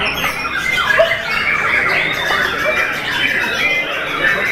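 Many caged white-rumped shamas (murai batu) singing at once in competition, a dense, continuous tangle of overlapping whistled phrases from several birds.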